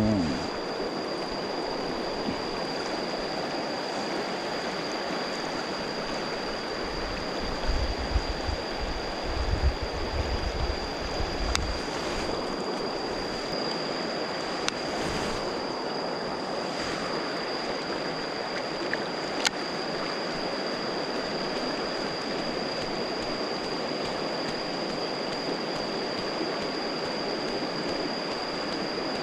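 Steady rush of flowing stream water, with a thin, steady high tone running over it and a few low bumps about a third of the way in.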